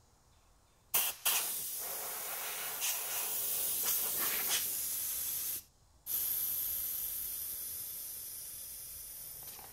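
Compressed air hissing out through the end of an air compressor's coiled air hose as the tank is bled down: a short puff about a second in, a long blast, a brief stop, then a second blast that slowly weakens as the tank pressure drops.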